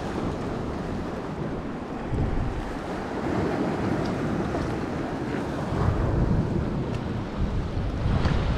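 Wind blowing across the microphone in gusts over waves washing against a rocky shore, stronger in the last few seconds.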